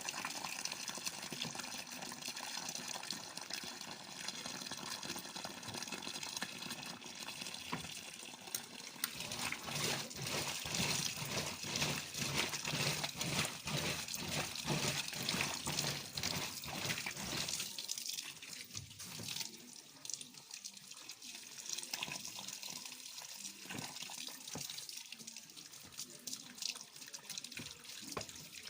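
Water running and splashing into a washing machine's tub. It is loudest and most splashy in the middle and quieter over the last ten seconds or so.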